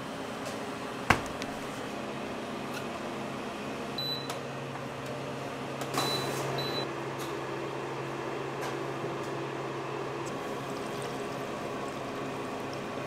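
Oven door shutting with a sharp knock about a second in. Then a kitchen appliance gives a few short high beeps and runs with a steady low electrical hum.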